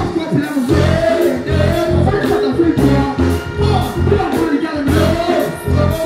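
Dancehall riddim played loud over a stage sound system, with a heavy bass beat about twice a second and a deejay singing and chanting over it through a microphone.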